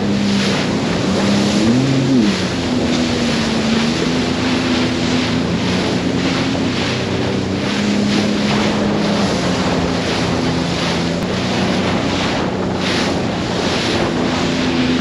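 Sea-Doo GTX personal watercraft engine running under way through rough, choppy water, its pitch stepping up and down with a quick rise and fall about two seconds in. Heavy wind noise on the microphone and rushing water run throughout.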